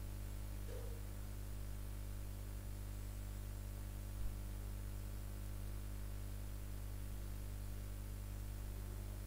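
Steady low electrical hum with a faint hiss, the background noise of the recording setup, with one brief soft thump about four seconds in.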